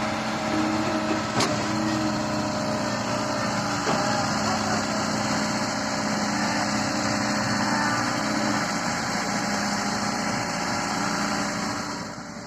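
Diesel engine of a heavy machine running steadily, with a couple of sharp knocks, about a second and a half in and again about four seconds in.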